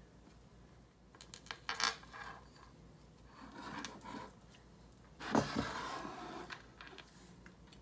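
Porcelain teacup and teapot being handled and set down on a table: light clinks and knocks, with a louder knock and a short ring about five seconds in.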